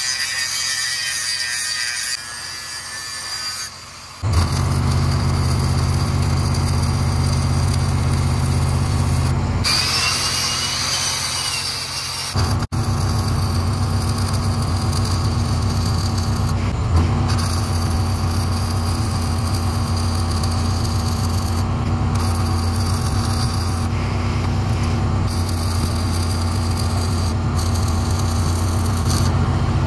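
An angle grinder runs against steel for the first few seconds. About four seconds in, stick welding begins: a steady arc crackle over the low, even drone of an engine-driven welder working under load.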